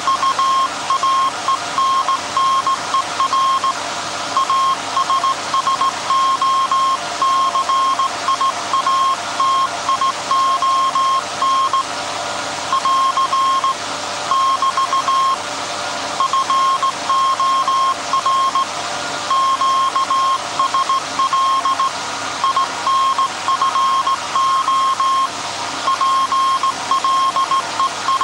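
Morse code for the SAQ transmission, heard as a tone of about 1 kHz keyed on and off in dots and dashes with short pauses between groups. Under it runs the steady machine hum of the running 1924 Alexanderson alternator.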